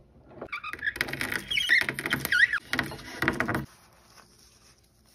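A brittle carbon strip crunching and squeaking as it is crushed between the steel rollers of a rolling mill, crumbling into flakes. The crackle, with short squeaks, stops about three and a half seconds in.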